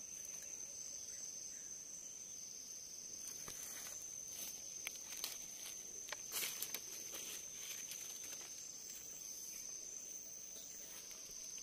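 Steady high-pitched drone of forest insects, with a few faint rustles and clicks in the dry leaf litter about halfway through.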